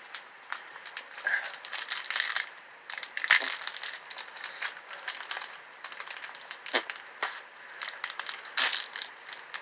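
Wrapping of a small mystery toy crinkling as it is handled and opened by hand, irregular rustles with a few sharp clicks.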